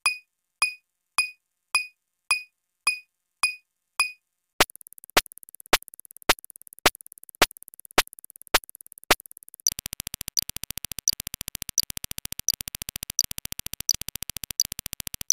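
Synthesized electronic sound effects in three runs: a short ping repeated about twice a second, then sharp clicks at the same pace, then from about ten seconds in a rapid buzzing pulse with a louder tick roughly every 0.7 s.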